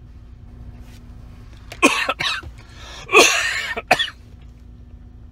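A man coughs in short, rough bursts, the longest and loudest about three seconds in, over a steady low hum.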